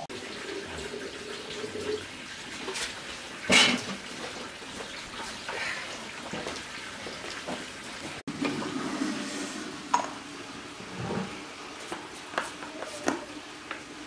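Water running and splashing, with scattered knocks and clatter and one sharp knock about three and a half seconds in.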